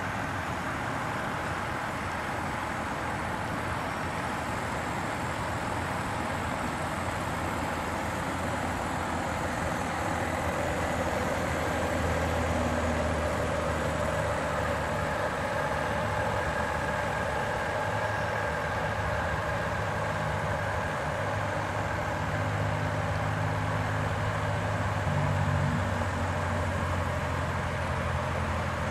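Model boat's double-cylinder oscillating steam engine, a Regner-built marine steam plant sold by Krick, running steadily under way. It grows louder about halfway through.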